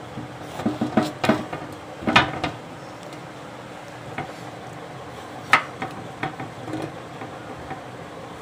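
Knife chopping through a large eggplant on a wooden board resting on a metal plate: irregular knocks and clacks of the blade striking the wood. There is a quick cluster about a second in, with the loudest strokes about two seconds in and again midway.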